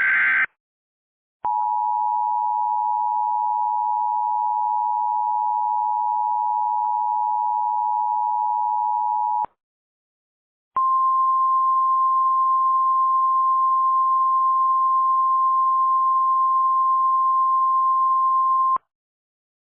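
Emergency Alert System tones: the last half second of a SAME header data burst, then the two-tone EAS attention signal (853 and 960 Hz together) held for about eight seconds. After a short gap comes the single 1050 Hz NOAA Weather Radio warning alarm tone for about eight seconds, which signals that a tornado warning is being issued.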